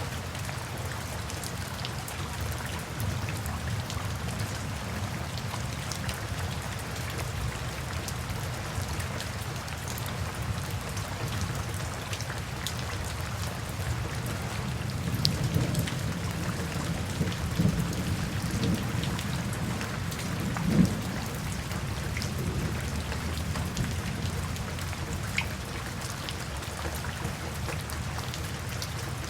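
Steady rain falling. Partway through, a low rumble of distant thunder swells up several times and ends in a short louder clap, then fades back to rain alone.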